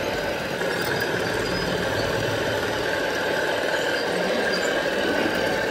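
Radio-controlled model machinery running: a steady high whine over a dense mechanical hum.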